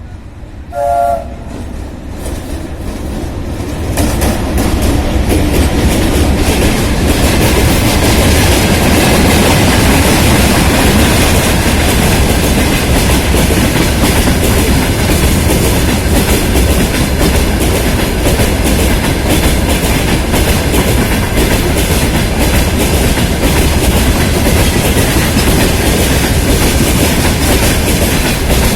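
A short locomotive horn blast about a second in. Then a VL80K electric locomotive and its freight train pass at speed, the wagons' wheels knocking loudly over the rail joints in a steady clatter.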